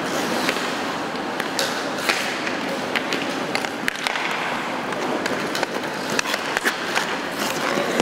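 Ice hockey play: skate blades scraping and carving on the ice, with frequent sharp clacks of sticks on the ice and puck, over a background murmur of voices in the rink.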